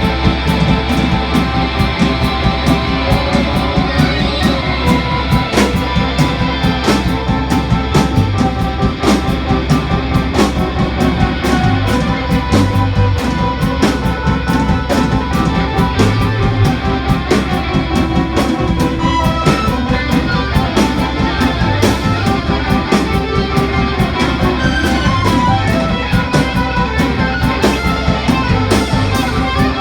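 Rock band playing live, led by electric guitar over a steady beat of drum hits.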